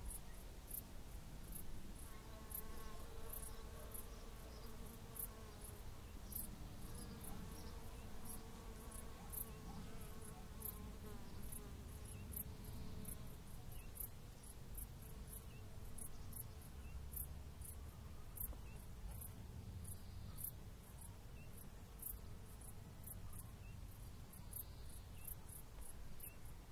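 Short, very high-pitched insect chirps repeating about twice a second, over a low rumble of wind.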